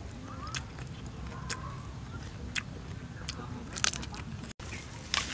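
Crisp bites and chewing into a raw green mango: a string of sharp crunches, the loudest two near the end.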